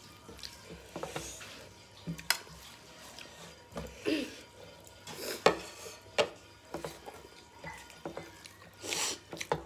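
Hands mixing rice and curry on steel plates: soft squishing with scattered sharp clicks and taps against the metal plates.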